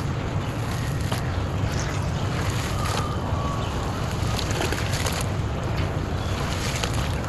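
Hands sloshing and swishing in a basin of water, stirring crumbled dry clay into mud, with scattered small gritty clicks.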